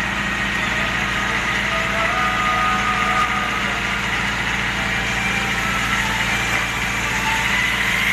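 A fire truck's engine running steadily at a constant speed, driving the pump that feeds its charged hoses, with a steady hiss of water over it.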